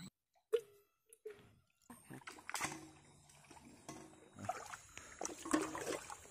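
Shallow water splashing and trickling as a bamboo fish trap is moved and handled in it, with small knocks. The first two seconds are almost silent apart from a couple of clicks; the splashing starts about two seconds in and grows busier toward the end.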